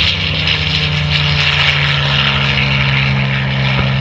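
Piston-engine propeller airplanes running, a steady, even engine drone.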